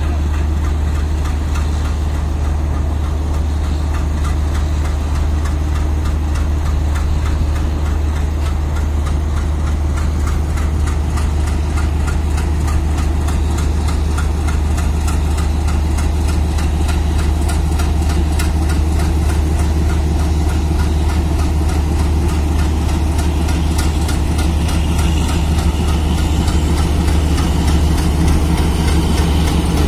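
The 16-cylinder ALCO diesel engine of a WDG-3A locomotive running with a steady deep hum as it slowly pulls coaches, growing a little louder near the end as the locomotive draws alongside.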